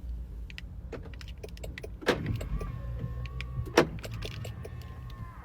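Keys handled, with two sharp clunks about two seconds and nearly four seconds in, and a small electric motor on a 2023 Range Rover Evoque whining steadily for about three seconds from about two and a half seconds in, as the car's key is being tried.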